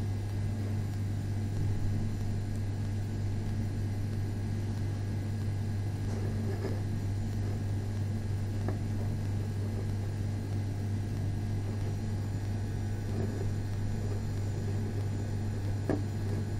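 Steady low hum with no change in pitch, with a few faint clicks scattered through it.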